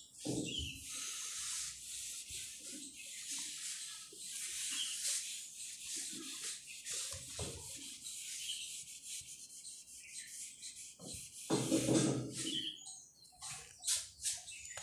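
A felt board duster wiping marker off a whiteboard in repeated strokes, a scratchy hiss. A louder, deeper sound cuts in briefly about twelve seconds in.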